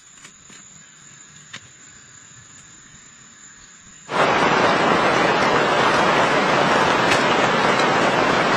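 Heavy rain, a loud dense steady hiss, starting abruptly about four seconds in. Before it there is only quiet with a faint high steady whine and a single click.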